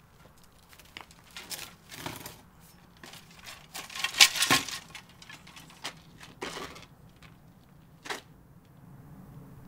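Scattered rustling, scraping and clinking of objects being handled by hand, coming in irregular short bursts, loudest about four seconds in. A faint low hum comes in near the end.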